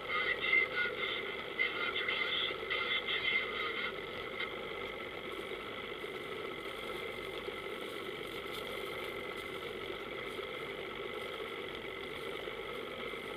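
Powerboat engine running steadily, heard from on board. The sound is louder and more uneven for the first four seconds or so, then settles to an even drone.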